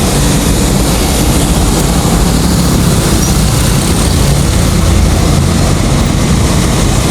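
Loud, steady street traffic noise: vehicle engines running.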